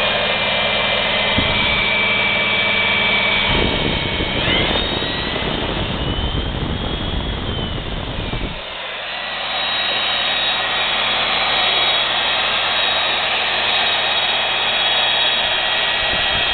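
Milwaukee magnetic base drill press running in reverse, its electric motor whining steadily. The whine jumps up in pitch about four seconds in, then settles lower from about nine seconds on. A rougher, heavier noise comes in under it from about three and a half to eight and a half seconds.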